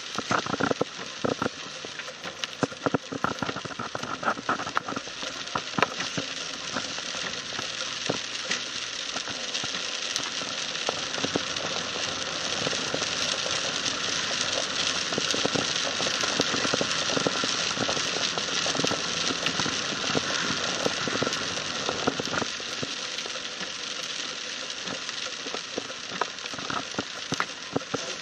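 Heavy rain pelting a car's roof and windscreen, heard from inside the cabin: a steady hiss of rain studded with many sharp drop impacts, thickest in the first few seconds and again near the end.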